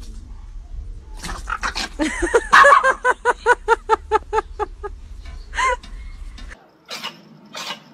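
Dogs play-fighting, one yapping in a rapid string of short barks, about five a second, with one more yelp shortly after.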